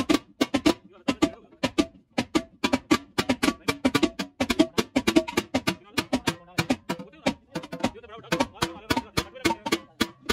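Hand hammer beating the body of a large aluminium cooking pot: rapid, uneven metal strikes, about four or five a second, each ringing briefly as the pot is shaped.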